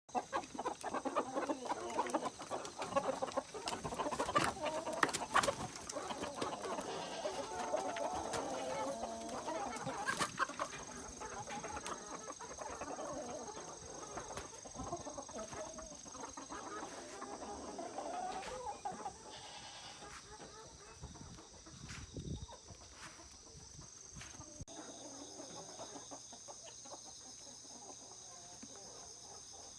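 A flock of native Korean chickens clucking, busiest in the first twenty seconds and thinning out after that, with a few sharp clicks in the first ten seconds.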